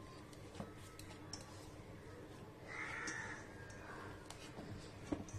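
Faint soft squishing and handling of risen yeast dough being punched down and kneaded by hand in a stainless steel bowl. About three seconds in comes one short call-like sound, louder than the rest.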